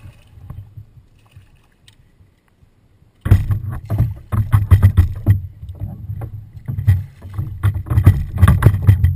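Water sloshing and slapping against a WaveWalk W500 kayak hull close to the mic. It is quiet for about three seconds, then starts abruptly as loud, choppy, deep splashing.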